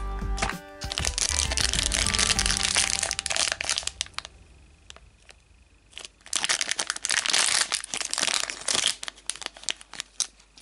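Plastic blind-bag wrapper crinkling as it is handled and torn open, in two spells of rustling about a second in and again about six seconds in. Background music plays during the first few seconds.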